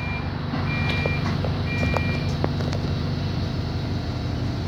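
Bus door warning beeps, a short two-tone beep about once a second, three times, ending about two seconds in; they signal that the doors are about to close. Under them, the bus's engine idles with a steady low hum.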